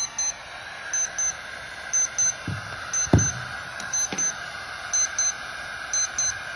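ThermoPro digital thermometer beeping in quick pairs about once a second, with a steady hiss underneath. A few knocks midway, the loudest about three seconds in, as the 3D-printed plastic outer cover is handled.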